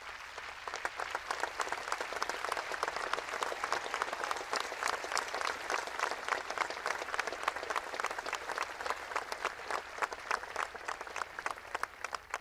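An audience applauding: many hands clapping densely and steadily, thinning out near the end.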